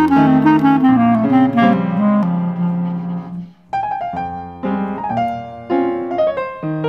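Clarinet and piano playing a jazz piece: a run of notes falling in pitch, a short break about halfway through, then the piano carries on.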